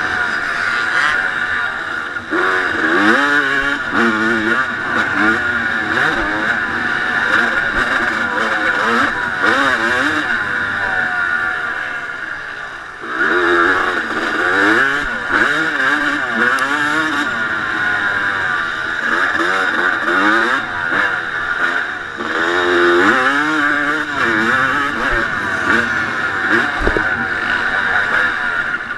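1989 Honda CR250's single-cylinder two-stroke engine under hard riding, revs climbing and falling again and again. About twelve seconds in the throttle rolls off and the sound drops, then it pulls hard again.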